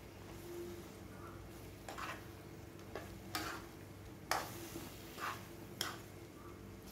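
A metal spatula stirring a thick ground masala with vegetables and green cowpeas in a kadai, scraping against the pan about half a dozen times at uneven intervals. The mixture fries quietly in oil underneath.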